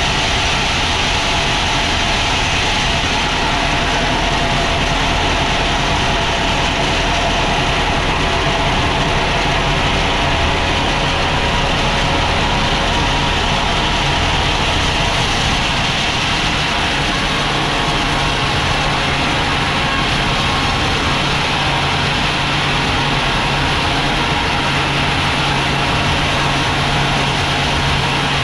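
Sawmill machinery running steadily: a continuous engine-like drone with steady higher tones over it. About halfway through, the low hum shifts to a slightly higher, more even tone.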